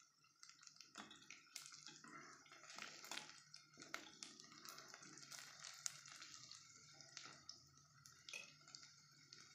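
Sliced onions frying in oil in an aluminium pot, a faint sizzle with frequent crackles and pops, as a steel ladle stirs them and scrapes and knocks against the pot. A steady low hum runs underneath.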